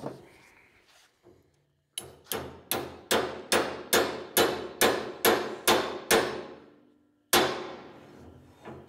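Hammer driving a steel roll pin into a bush hog's tail-wheel spindle: about eleven quick, evenly spaced metal-on-metal blows, each ringing briefly, then a pause and one final blow near the end.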